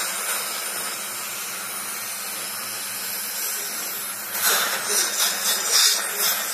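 Dental suction wand held in the patient's mouth, drawing air and saliva with a steady hiss over a faint motor hum, surging louder and unevenly over the last couple of seconds.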